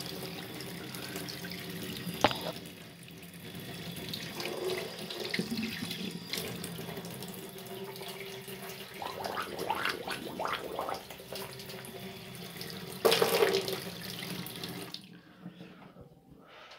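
Water running from a tap into a stainless-steel sink, with irregular louder splashes and a sharp click about two seconds in. The flow stops about fifteen seconds in.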